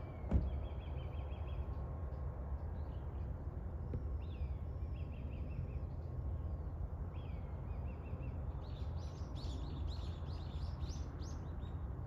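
Small birds chirping in short repeated phrases, with a busier run of chirps near the end, over a steady low rumble. A single thump comes about half a second in.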